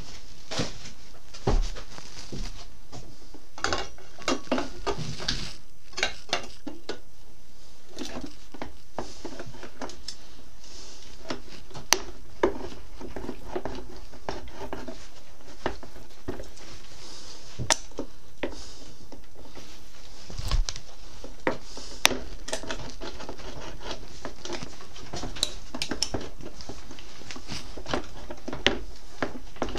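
Irregular metallic clinks, clacks and knocks of hand tools and motorcycle parts being handled. There are short clusters of clatter and a few sharp single clacks, the loudest about 22 seconds in.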